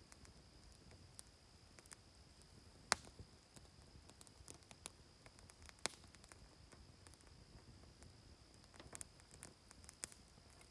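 Near silence: faint outdoor ambience with a steady, faint high-pitched whine and a few scattered sharp ticks.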